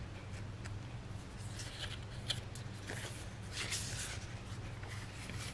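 Sheets of paper stickers rustling and brushing against each other as they are handled and swapped, with a few faint ticks, over a steady low hum.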